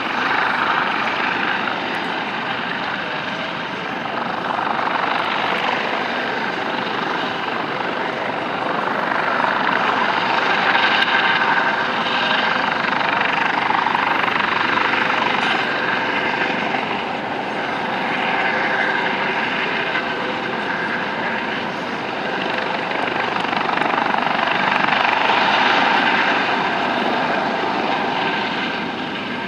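US Coast Guard MH-65 Dolphin helicopter flying low: steady rotor and turbine noise from its twin turboshaft engines and Fenestron ducted tail rotor. It swells and eases several times as the helicopter moves about.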